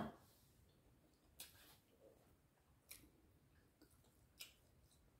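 Near silence with faint eating sounds: quiet chewing and a few soft clicks of fingers picking food from a plate, after a short, louder sound right at the start.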